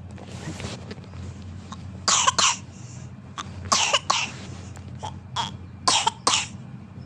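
A baby coughing: a series of short, harsh coughs, mostly in quick pairs, starting about two seconds in.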